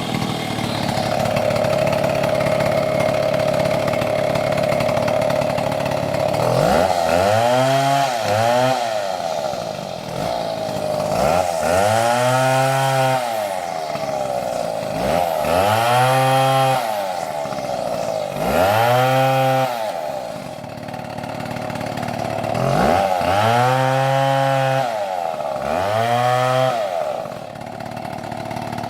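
Stihl chainsaw engine running at a steady high pitch for several seconds, then revved up and down about six times, each rev rising and then falling back.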